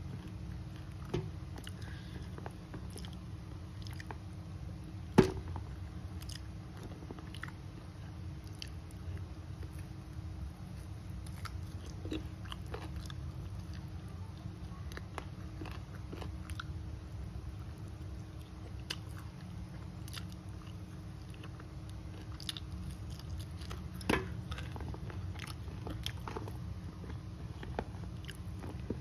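Close-up chewing and biting of duck and rice eaten by hand, with small crunches and clicks as the meat is picked from the duck bones; two sharper clicks stand out, about five seconds in and again near the end of the third quarter. A steady low hum runs underneath.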